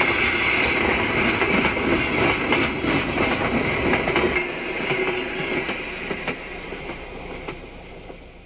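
Freight cars rolling past on jointed track, wheels clicking over the rail joints over a steady high ring. The sound fades away through the second half.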